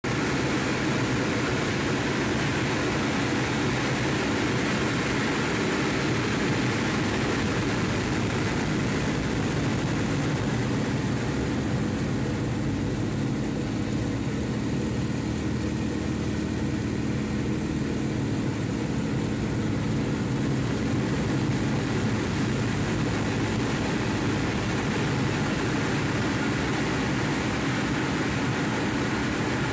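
Yak-52 nine-cylinder M-14P radial engine and propeller running steadily through a loop, with rushing air, heard from inside the cockpit. For several seconds in the middle, around the top of the loop, the sound grows duller.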